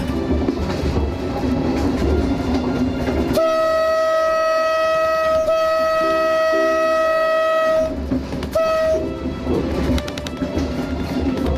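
Train horn sounding one long single-note blast of about four seconds, with a brief break near the middle, then a short toot about a second later. Under it is the train's steady running rumble on the rails.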